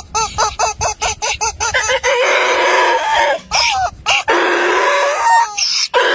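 Rubber chicken squeeze toy squeaking: a quick run of short squeaks, about four a second, for the first two seconds, then several long drawn-out screeches as it is squeezed slowly.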